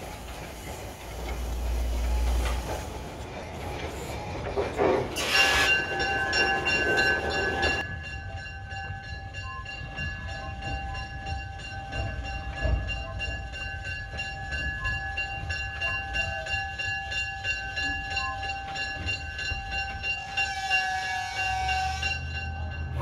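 Porter steam locomotive No. 58 letting off a loud hiss of steam with a rumble for the first several seconds. Then a bell rings continuously, struck over and over at an even pace, and a broader hiss comes in near the end.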